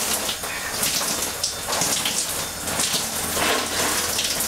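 Shower running, water spraying and splashing irregularly over a man's head and hands as he rinses his hair.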